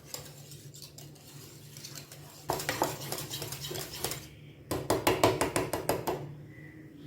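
Wire whisk beating cooled, thickened custard in a pan, the whisk clicking rapidly against the metal in two vigorous bursts, the first about two and a half seconds in and the second about five seconds in.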